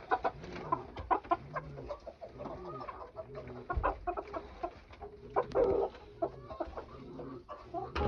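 Hens clucking low and repeatedly, about twice a second, with scattered clicks and rustles of handling and wood-chip bedding, and a louder rustle a little past halfway.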